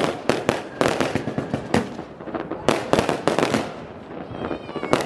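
Fireworks display: rapid volleys of bangs and crackles in clustered bursts, easing off in the last second or so.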